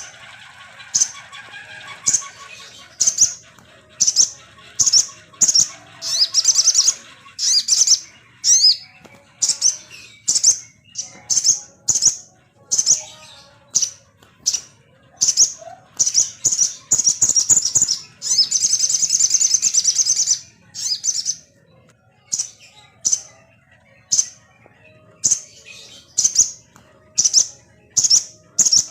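Sogon songbird song played as a lure track to set off a kept bird's singing: a long series of sharp, high chirps, about two a second, with a longer rapid trill about eighteen seconds in.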